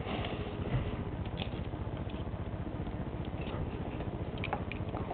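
Faint handling noise: a few small clicks and light rustles over a steady background hiss.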